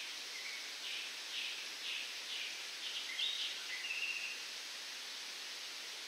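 Wind rustling through coconut palm fronds as a steady hiss. Over it, a bird calls a string of short high chirps, about two a second, for the first four seconds, ending in a longer note.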